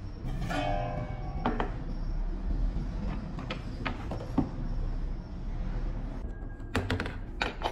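Metal handling sounds: a stainless-steel cover box scraping with a short ringing tone as it is lifted off the exothermic welding mould, then scattered knocks as it is set down, and a quick run of metal clicks near the end as the mould clamp is handled.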